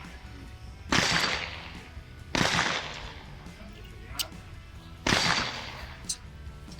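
Three pistol shots firing handloaded rounds, the second about a second and a half after the first and the third nearly three seconds later, each a sharp crack with a short echo. Two fainter sharp clicks fall between the later shots.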